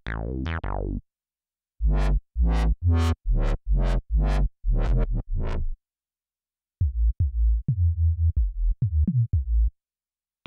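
Native Instruments Massive synth bass presets played note by note on a keyboard. First a short tail of notes, then a run of about eight heavy bass notes roughly half a second apart, each starting with a sharp click. After a gap, a faster run of shorter bass notes from another patch.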